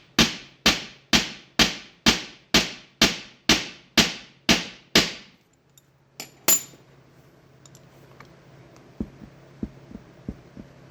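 Steady metal knocking, about two blows a second for some five seconds, as a hydraulic roller lifter is struck to free its stuck plunger. The knocking stops, followed by a single ringing metal clink and a few light ticks.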